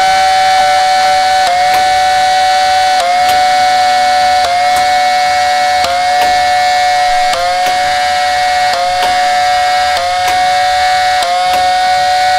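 Modded Nerf Stryfe flywheel blaster with Honey Badger motors on a 3S LiPo, its flywheels held at a high steady whine while darts are fired one at a time. Each shot brings a click and a brief dip in the whine, about every second and a half, some eight or nine times.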